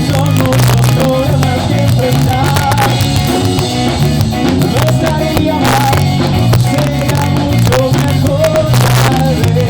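Live ska band playing, heard in a rough amateur recording from the audience: drum kit and a bass line keep a steady beat under a melody.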